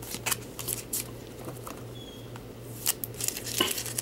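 Baseball cards in plastic sleeves and holders being handled and flipped through by hand: a string of light, irregular clicks and rustles, over a steady low hum.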